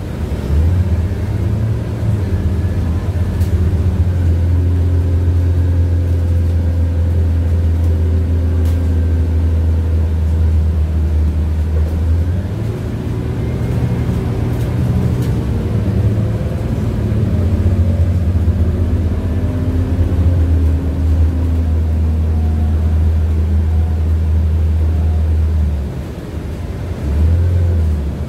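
Interior running noise of a Scania CityWide LF 12 CNG low-floor city bus on the move: a steady low drone from its compressed-natural-gas engine and the road, with fainter whining tones that glide up and down as the bus speeds up and slows. The drone drops briefly near the end.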